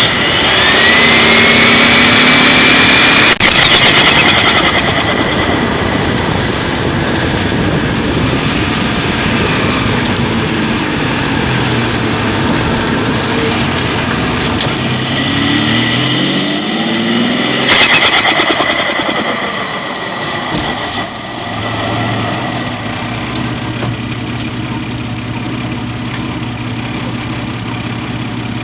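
Turbocharged Ford Probe 2.5 V6 revved twice, the turbo whistle rising with each rev. Each time the throttle closes there is a rapid fluttering chatter of compressor surge: once about three and a half seconds in, and again around eighteen seconds. It then settles to a steady idle.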